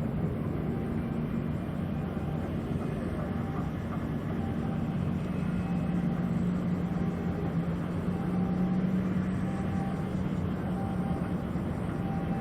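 Tugboat's diesel engine running with a steady low drone, its hum growing stronger about halfway through.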